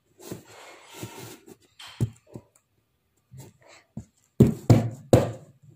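Paper note scraping and rustling as it is pushed into a cardboard box's slot, with a couple of small clicks, then three loud thumps in quick succession near the end.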